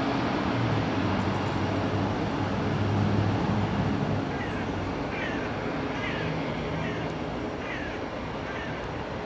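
Electric locomotive and double-deck regional train running away down the line, its low hum and rumble slowly fading. Partway through, half a dozen short, high, falling animal calls sound over it.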